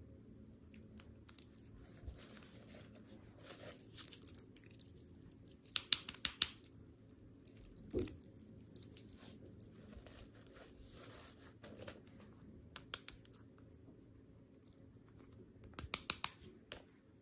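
Candy packaging being handled and torn open: crinkling and tearing, in two louder clusters of crackles, with a single dull knock partway through.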